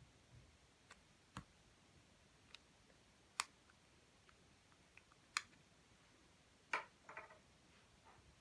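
Scattered sharp clicks and taps, about eight in all, with a quick rattly cluster of clicks near the end, over a very quiet room.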